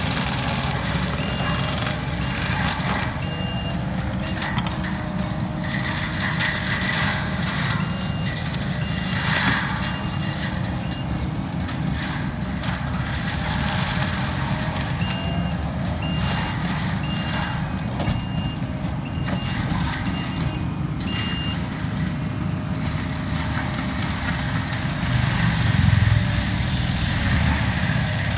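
Kubota compact track loader's diesel engine running steadily under load with its forest-mulcher head working. The back-up alarm beeps in three spells, about two beeps a second, as the machine reverses.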